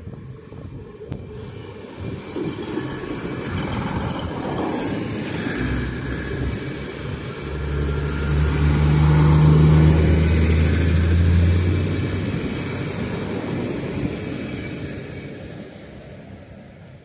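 TCDD MT15400-series diesel multiple unit passing close by. Rumble and wheel noise build, the diesel engines' low drone is loudest about eight to twelve seconds in, then the sound fades away.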